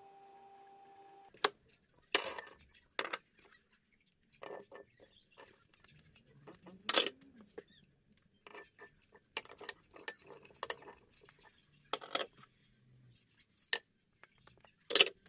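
Ceramic dishes clinking and knocking together as chopped vegetables are tipped off a plate and out of a small bowl into a large salad bowl, with the soft patter of the pieces falling in. Sharp clinks come every few seconds, the loudest about two, seven and fifteen seconds in. A steady low hum stops about a second in.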